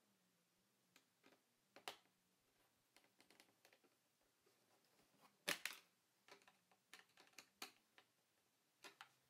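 Scattered light clicks and taps of a small screwdriver working at a laptop screen's mounting bracket, at irregular spacing, the loudest about halfway through.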